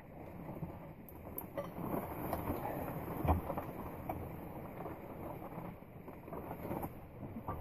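Faint scuffling with a few light metal clicks and one soft knock as a wrench is worked on a stuck BMW E36 flywheel bolt.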